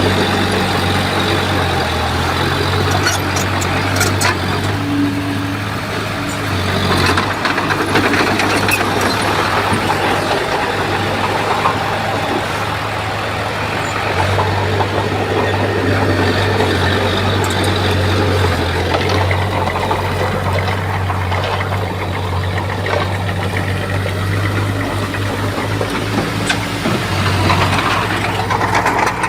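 Bulldozer's diesel engine running under load, its note shifting a few times, with scattered clanks from the machine working soil and stone.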